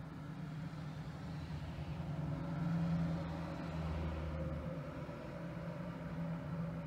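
EMD MP15DC switcher's two-stroke V12 diesel idling steadily while it stands with its cars, swelling slightly a few seconds in.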